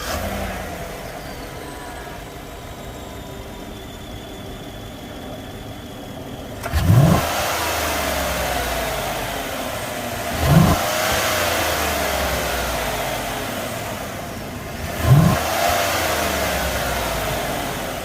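Chevrolet Silverado V8 idling, then revved three times. Each rev is a quick throttle blip that climbs sharply and settles back slowly. The engine breathes through an Air Raid Jr. intake tube that replaces the stock air box.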